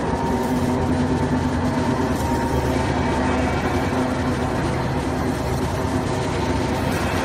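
Industrial tire shredder running, its electric motor and reduction gearbox giving a steady, even mechanical hum.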